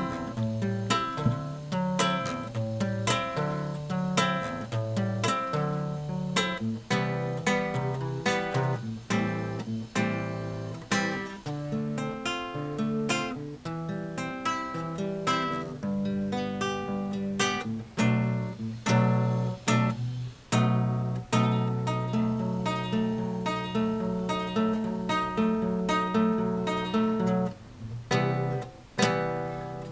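Acoustic guitar played solo: a continuous run of plucked notes and strummed chords, each note clearly struck and ringing briefly, with short breaks near the end.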